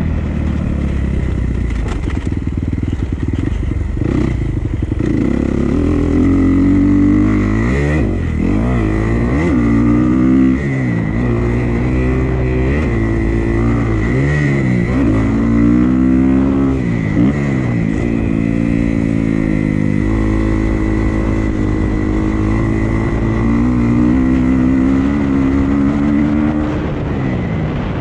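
Dirt bike engine under throttle as it is ridden around a motocross track, its pitch repeatedly climbing and dropping as the rider gets on and off the gas.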